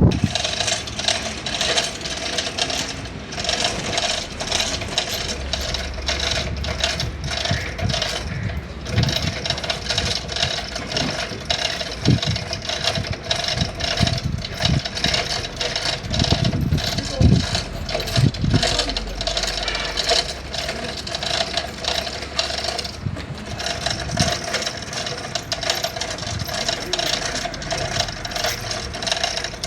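Metal clinking and rattling over a steady mechanical hum, with a run of dull knocks about halfway through.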